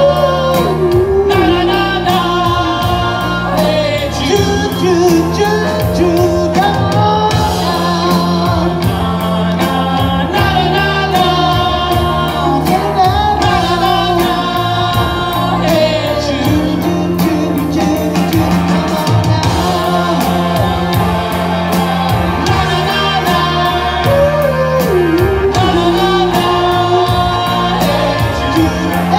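Live rock band playing: electric guitars with a steady beat and a singer's voice over them.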